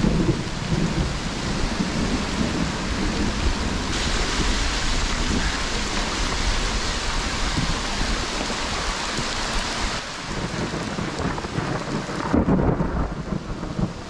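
Torrential rain beating on a handlebar-mounted action camera as a mountain bike rides through it: a dense, steady hiss over a low rumble. The sound shifts abruptly a few times.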